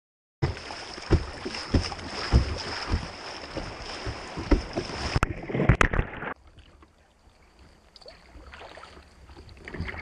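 Wind buffeting the microphone with repeated low thumps, over water noise from a kayak on the creek. It cuts in abruptly about half a second in and drops to a much quieter hiss about six seconds in.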